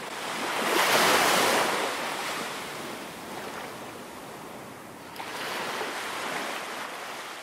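Ocean surf breaking and washing onto a sandy beach. It surges twice, loudest about a second in and again near the end, before fading out.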